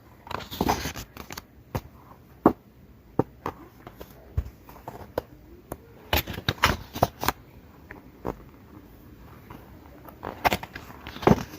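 Paper and card being handled: irregular sharp taps and short rustles as album pages and photo cards are turned and moved, busier about six to seven seconds in and again near the end.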